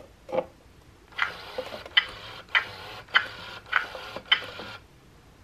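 Baby Alive Hayley doll chewing after a toy spoon is put in its mouth: its mouth mechanism clicks in a steady rhythm, about six clicks a little over half a second apart, starting about a second in and stopping near the end.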